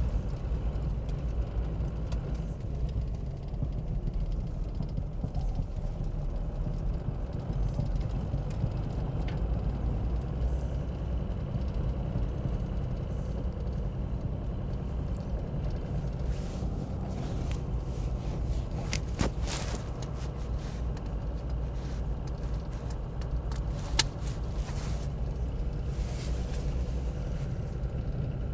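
Toyota 12H-T 4.0-litre turbo-diesel straight-six of a Land Cruiser HJ61 running as the truck drives slowly, heard from inside the cab: a steady, low, tractor-like rumble. Over the second half come scattered light clicks and ticks, one sharper than the rest.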